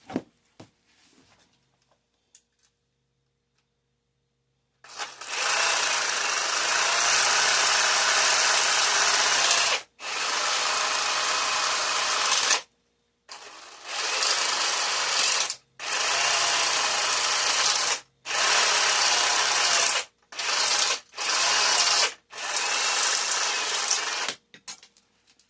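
Power tool cutting down an aluminium bus bar, starting about five seconds in and running in about eight stretches of one to five seconds each, with short pauses between them.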